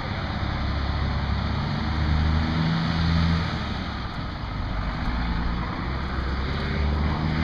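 Engine of a military 6x6 cargo truck running as the truck drives toward the microphone, the low engine sound growing stronger about two seconds in and again near the end.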